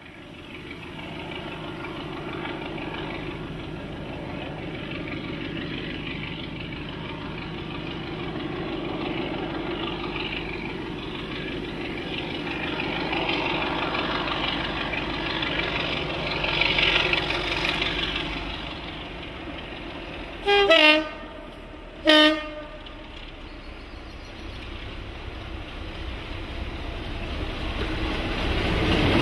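BR Class 33 'Crompton' diesel locomotive D6566 approaching under power with a train, its Sulzer eight-cylinder engine running steadily and growing louder toward the end. About two-thirds of the way through it sounds two short horn blasts, a second and a half apart.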